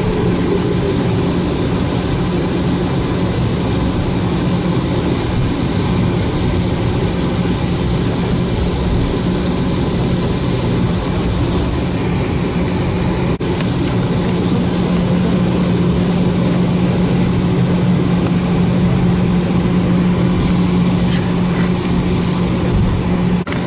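Steady cabin noise inside an Airbus A319 taxiing, with its jet engines at idle and a constant low drone. The sound cuts off abruptly near the end.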